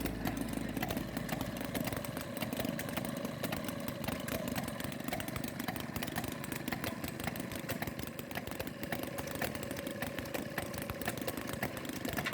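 Small gasoline engine running steadily with rapid, even firing pulses: the kick-start engine of an old gas-powered washing machine.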